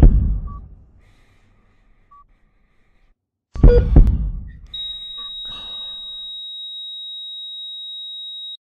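Two heavy booming thumps about three and a half seconds apart, with a few faint short beeps between them, then a patient monitor's steady high flatline tone from about five seconds in, the signal that the heart has stopped.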